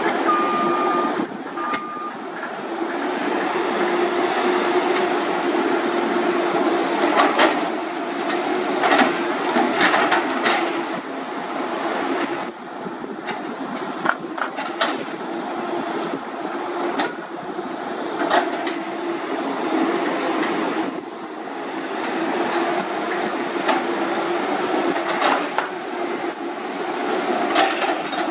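Several long-reach Caterpillar excavators working a canal bank: a steady diesel engine and hydraulic drone, with repeated sharp metallic clanks and squeaks from the buckets, booms and tracks. Two brief high squeals come near the start.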